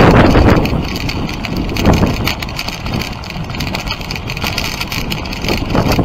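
Dog sled gliding over snow: the runners hiss and scrape steadily while wind buffets the microphone, loudest in the first half second and then easing.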